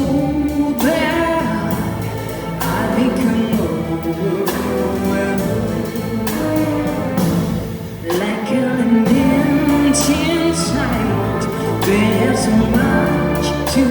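Symphonic jazz orchestra playing a slow blues-style song, with singing over it and short, sharp percussion strokes every second or two.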